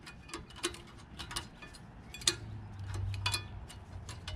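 Sharp metallic clicks and taps, about five spread over a few seconds, as a new brake hardware clip is worked by hand into a rear brake caliper bracket and does not seat easily.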